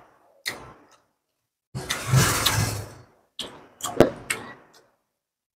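Close-miked mouth and eating sounds of people eating grilled chicken with their hands: chewing and lip smacks in short separate spells. There is a longer breathy stretch about two seconds in, and a few sharp clicks just before the middle.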